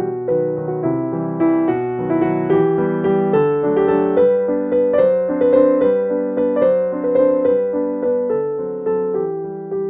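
Background piano music: a gentle melody of struck notes, each fading away, a new note about every half second.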